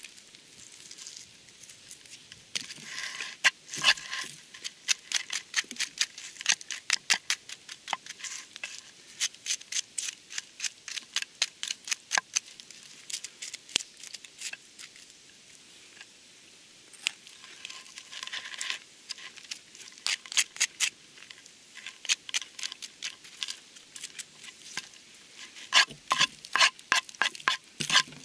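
Knife cutting through the charred, clay-baked crust of a roast on a wooden cutting board: a dense run of crisp crackling clicks, busiest a few seconds in and near the end, where the blade scrapes burnt crumbs across the board.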